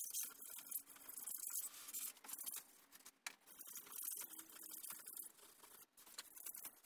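Insulation cutting knife sawing through a polyiso rigid foam board: a run of scratchy back-and-forth strokes with short breaks between them.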